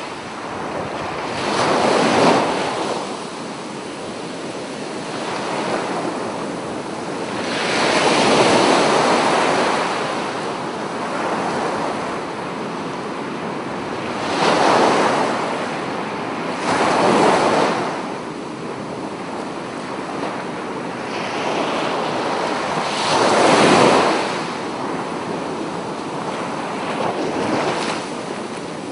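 Sea surf washing up on a sandy beach: a steady rush of water that swells louder as each wave breaks and runs up the sand, about five times in the stretch.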